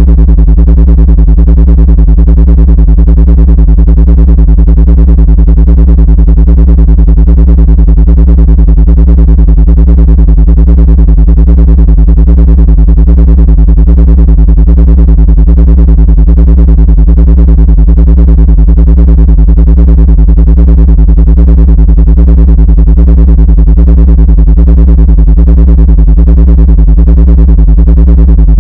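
Loud, unchanging synthesized drone: a stack of steady low tones, strongest in the deep bass. It is the track sold as an ant-repelling sound frequency.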